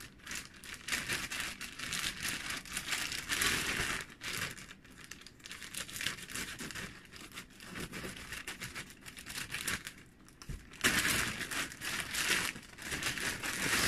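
Black plastic courier mailer bag crinkling and rustling as it is cut open with scissors and pulled apart, quieter in the middle and louder again near the end.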